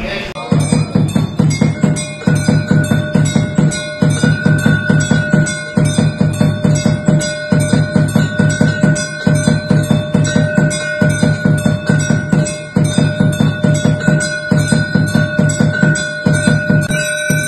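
Temple bells clanging in a fast, even rhythm with drum beats, in repeating phrases, as rung during an aarti.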